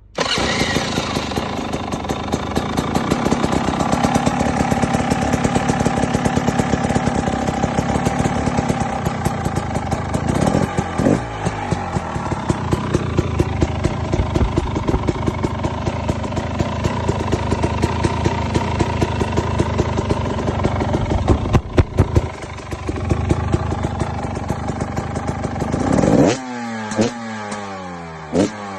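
KTM EXC 300's single-cylinder two-stroke engine running with a rapid, crackling exhaust beat, blipped a few times. Near the end it is revved hard and the revs fall away.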